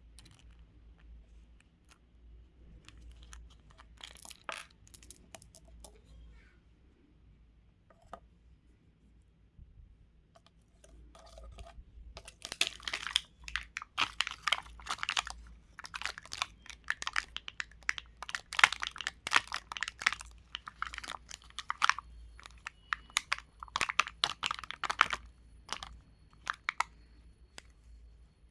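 Crunchy ASMR craft material being squeezed and pressed by hand, making rapid crackling, crunching clicks. It is sparse and faint at first, turns dense and loud about twelve seconds in, and thins out again near the end.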